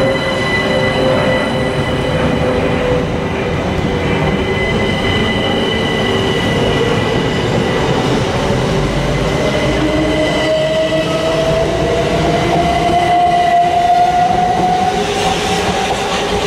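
Southern Class 377 Electrostar electric multiple units running through the station, with a steady rumble and a whining electric traction-motor tone that rises in pitch from about ten seconds in as the train gathers speed. Near the end the noise grows as a second train comes in.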